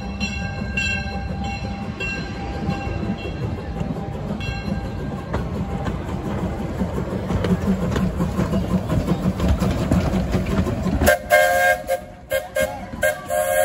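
Narrow-gauge steam locomotive Judy K passing at close range with its coaches, a steady rumble of exhaust and wheels. A bell rings repeatedly in the first few seconds, and about 11 seconds in the rumble drops away as the whistle sounds in short broken blasts.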